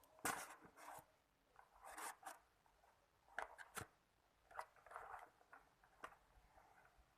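Product packaging being opened by hand: faint scraping and rustling in short bursts, with a few sharp clicks.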